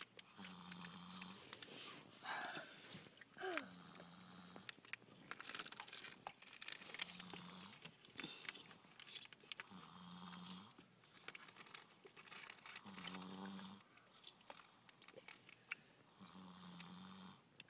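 Small child snoring in his sleep, a snore on each breath about every three seconds, six in all. Between the first two snores there is a short sliding voice-like sound, with faint small clicks throughout.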